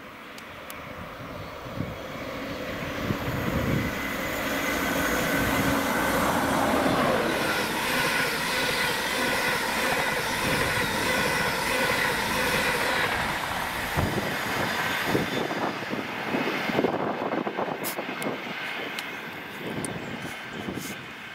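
Electric express train passing at speed: a rising rush of wheel and rail noise with a steady high whine, loudest in the middle, then fading away with scattered clicks near the end.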